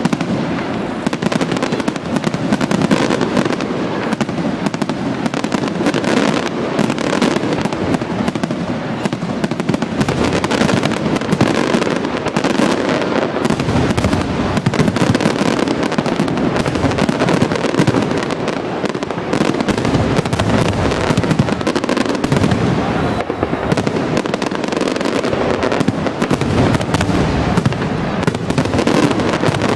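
Fireworks display: a dense, continuous barrage of bangs and crackling, with heavy booming that rumbles underneath.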